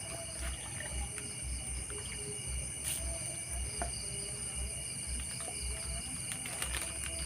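Chorus of crickets and other night insects: several steady, shrill trills layered at different pitches. Short, lower-pitched chirps come and go over them, and a low pulsing runs underneath about twice a second.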